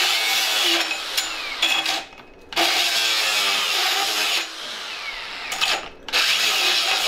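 Angle grinder with a damaged abrasive cutoff disc grinding hard into quarter-inch steel plate under twisting, sideways pressure, the disc being worn away rather than shattering. The cutting breaks off briefly about two seconds in and again near six seconds, then bites in again.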